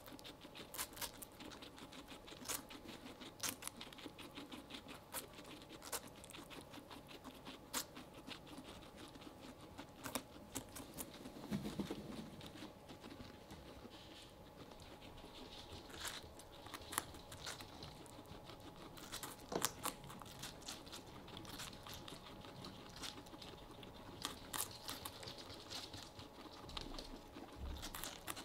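Guinea pigs chewing and gnawing on a slice of watermelon: a continual run of small, irregular crunching clicks.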